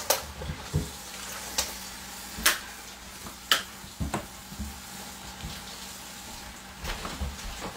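Scattered light knocks and clicks of kitchen work at a counter, over a steady low hiss.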